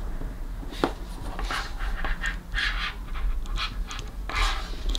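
Small plastic clicks and scrapes of an SH Figuarts action figure's swappable hair and head parts being pulled off and fitted by hand, in scattered short bursts.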